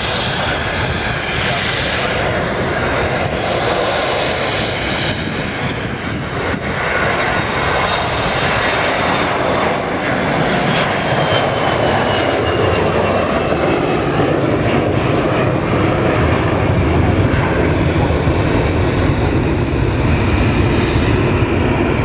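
Jet airliner's engines passing close overhead as it climbs out: steady jet noise with a thin high whine that falls in pitch about ten to thirteen seconds in as it goes by, then a low rumble that grows louder toward the end.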